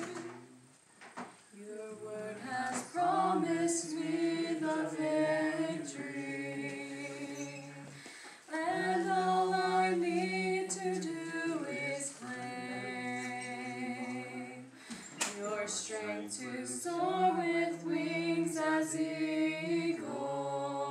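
A small mixed group of men's and women's voices singing a cappella in harmony, in long held phrases with short breaks between them.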